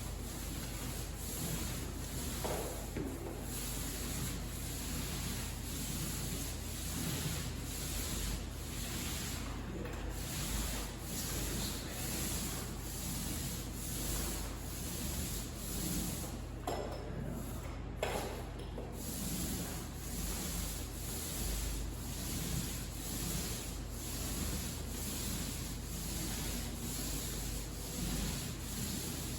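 Joint compound being spread and rubbed onto drywall in a steady rhythm of repeated strokes.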